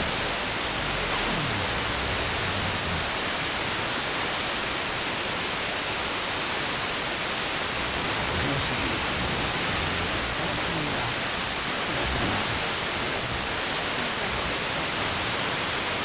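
FM radio reception through an RTL-SDR receiver in wideband FM mode: a steady hiss of static from a weak FM broadcast signal, with faint speech coming and going under the noise.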